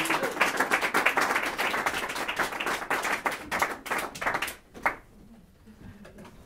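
Audience applauding with many separate hand claps. The clapping thins out and stops about four and a half seconds in, with one last clap just after.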